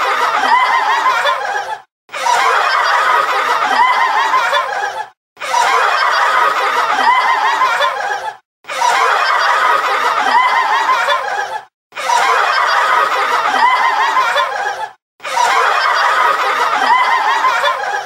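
Laughter sound effect: a burst of about three seconds of laughing that repeats roughly six times, with a brief silent gap between each repeat.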